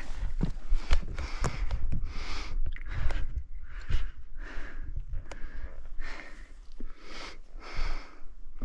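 Hard, rapid breathing of a hiker exerting himself while scrambling over steep rock, each breath in and out following closely on the last. Sharp clicks and scrapes from the climb are scattered among the breaths.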